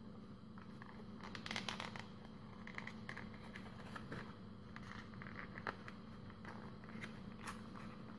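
Paper crinkling and rustling as hands open out and shape a folded origami paper boat, with a short burst of crinkling about one and a half seconds in and scattered small crackles of the creased paper after it, over a faint steady hum.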